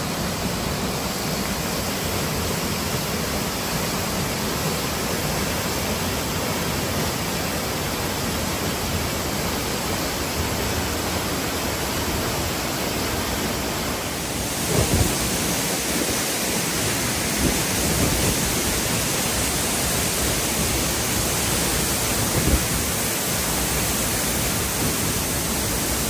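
A waterfall pouring into its plunge pool, a steady rush of falling water. The waterfall is usually dry and is running full after storm rains. About halfway through, the rush turns brighter and more hissy.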